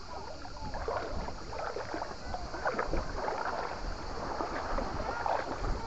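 Water sloshing and gurgling, with many small bubbling chirps.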